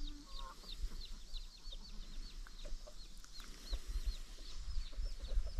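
Chickens peeping: a run of short, high peeps, about three a second, with a brief low cluck at the start. Low rumbling bumps come in from about four seconds in.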